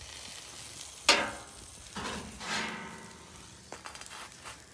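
Buttered Cuban sandwich sizzling on a hot flat-top griddle. About a second in there is a sharp metal clank, and around two seconds in a longer scrape, as the metal spatula and the cast iron press skillet are handled on the griddle.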